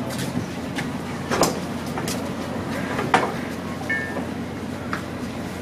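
Steady low mechanical hum with a few short, sharp clatters, the strongest about one and a half and three seconds in, and a brief high squeak about four seconds in.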